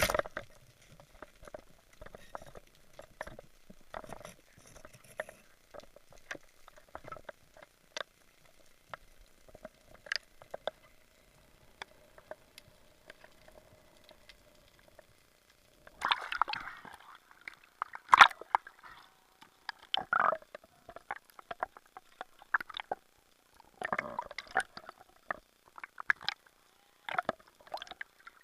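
Underwater water noise: scattered small clicks and gurgling movement with a faint steady hum through the first half, then louder sloshing, gurgling bursts and sharp knocks from a little past halfway.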